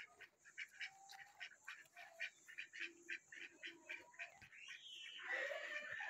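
Birds calling: a quick run of short chirps, about three or four a second, then a louder, harsher call near the end.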